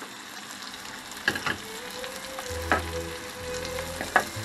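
Chopped onions and cherry tomatoes sizzling in oil in a non-stick frying pan, with a wooden spoon stirring them and knocking against the pan a few times.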